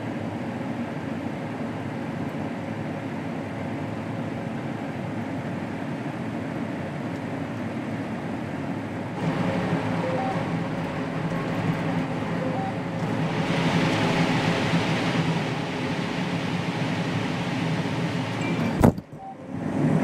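Combine harvester running while harvesting corn, heard from inside the cab: a steady machine drone that gets louder about nine seconds in. Near the end a single sharp knock as the cab camera falls over, and the sound briefly drops away.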